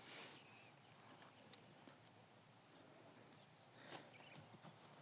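Near silence: faint outdoor background with a thin, steady high-pitched tone and a couple of soft brief rustles.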